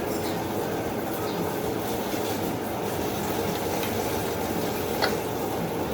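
Rockwell bandsaw running steadily with its feed engaged and set very slow, giving an even machine hum. A single sharp click comes near the end.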